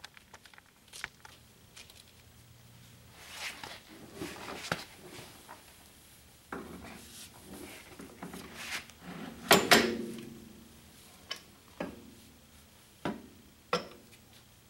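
Irregular metal clinks and knocks of tools and bolts against a tractor's cast-iron rear housing as a transmission mounting plate is bolted up and tightened. The loudest knocks come about nine and a half seconds in.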